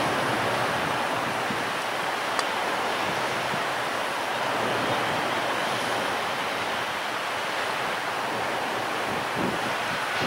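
Strong wind blowing across the microphone: a steady, even rushing noise.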